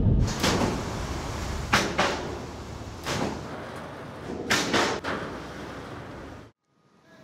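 Pickup trucks being loaded into an autorack rail car over steel ramp plates: a low rumble broken by a series of bangs and thuds, some in close pairs, cutting off suddenly near the end.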